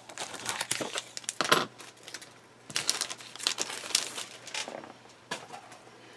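Clear plastic kit bag crinkling and rustling as a plastic model sprue is handled, in two spells, with a single light click near the end.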